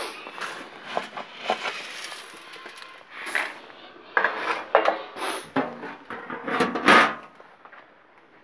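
Dried maize kernels being scooped from a bin into a bucket: the grain rattles and the container knocks and clatters in an irregular run of bursts, the loudest clatter coming just before the end.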